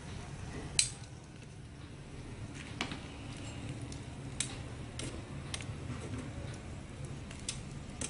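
Metal tongs clicking against a wire grill rack as pork ribs are turned over a charcoal stove: several sharp clicks at uneven intervals, the loudest about a second in, over a steady low hum.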